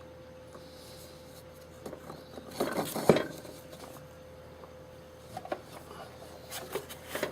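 Hand tools being picked up and set down in a tool chest drawer: scattered metallic clicks and clatters, the sharpest about three seconds in, with a faint steady hum underneath.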